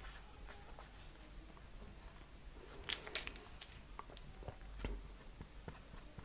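Faint paper handling: soft rustling and a few light ticks, most of them about halfway through, as the tip of a liquid glue bottle is run over folded paper.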